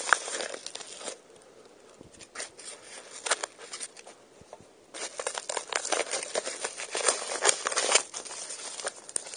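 Brown paper mailer envelope being handled and torn open: crinkling and rustling paper with sharp little crackles. It goes quieter from about one to five seconds in, with only a couple of rustles, then the crinkling resumes in earnest.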